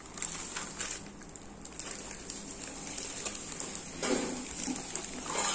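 Scattered light clicks and knocks over a steady high hiss, with a short louder burst about four seconds in.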